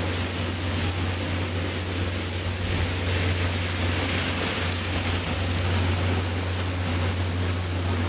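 Street ambience in a snowstorm: a steady low rumble under a hiss of traffic. A car passes on the slushy road around the middle, its tyres swishing on the wet snow.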